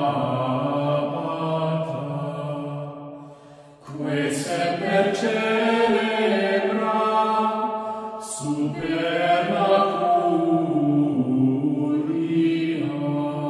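Background music of choral chant: low voices singing long held phrases, breaking off briefly about four seconds in and again about eight seconds in before each new phrase.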